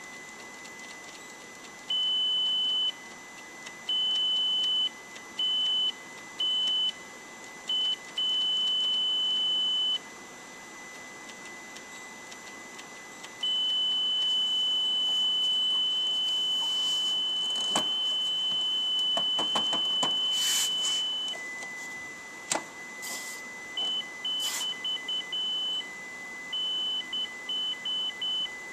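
Triadex Muse digital tone generator playing a sequence of high electronic beeps that step between two pitches. One note is held for several seconds in the middle, then the notes turn short and quick near the end. A few clicks come from its controls being handled.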